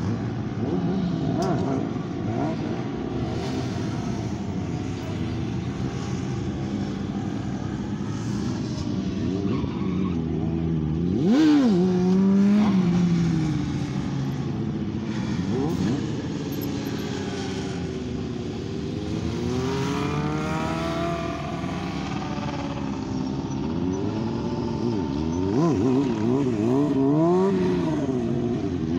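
Sport motorcycle engines revving and passing by as riders do wheelies. The pitch keeps climbing and dropping with the throttle, with the loudest pass about a third of the way in and another surge near the end.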